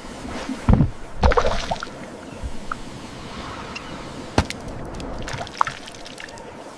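Water sloshing and splashing, with a few sudden louder hits over the steady wash, the sharpest about four and a half seconds in.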